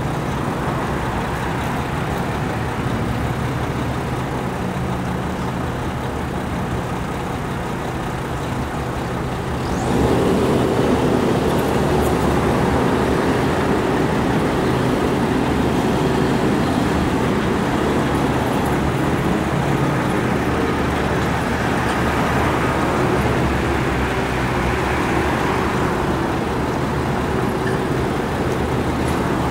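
City street traffic: cars passing on a multi-lane road. About ten seconds in it suddenly gets louder, and a steady engine hum carries on from there.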